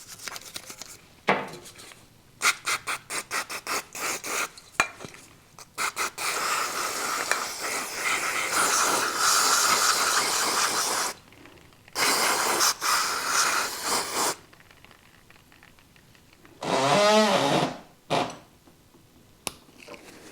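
Toothbrush scrubbing the inside of a motorcycle brake caliper in quick short strokes, then long hisses of aerosol brake cleaner being sprayed in, twice. A short wavering squeak comes near the end.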